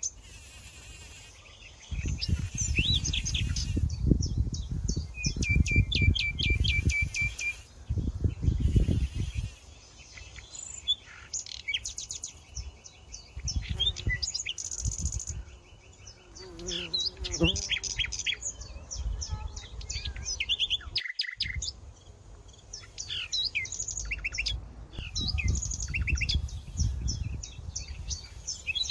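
Several wild birds chirping and trilling in quick, high notes, with bursts of low rumble that come and go.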